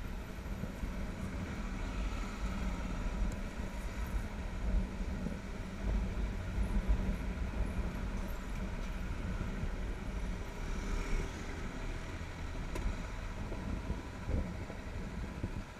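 Motorcycle engine running at low riding speed in slow traffic, with a steady low rumble.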